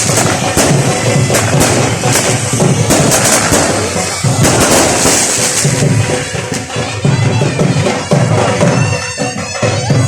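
Firecrackers going off in quick succession, a rapid string of sharp bangs over loud music; the bangs thin out after about six seconds.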